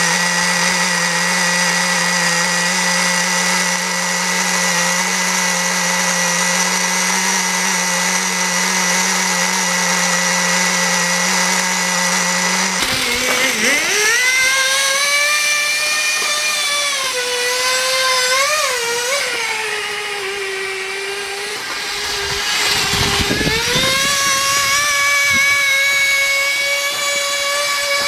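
NT18 0.8 cc (0.049 cu in) two-stroke model glow engine running on nitro fuel with a high, steady whine. About halfway in, its pitch starts to waver as it drives the scooter's rear wheel under load, sagging for a couple of seconds and then climbing back.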